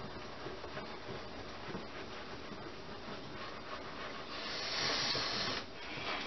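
Wire whisk stirring and scraping pancake batter in a glass bowl, a steady rubbing swish with small clicks of the wires against the glass, louder for about a second past the middle.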